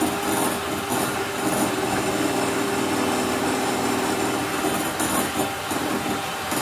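Two electric hand mixers running at once, a steady motor whine with the beaters whirring through a white mixture in a glass bowl.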